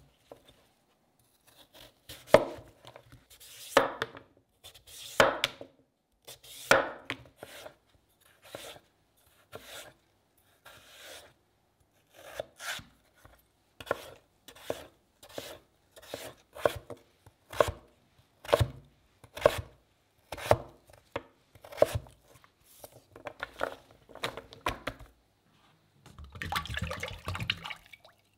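Chef's knife cutting through raw peeled sweet potato and striking a plastic cutting board, one cut at a time. The cuts come slowly at first, then about one a second. Near the end comes a short stretch of cooking oil pouring into a steel saucepan.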